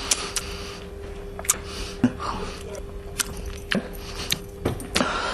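A person chewing noisily with the mouth open: wet smacking clicks at an uneven pace, roughly two a second.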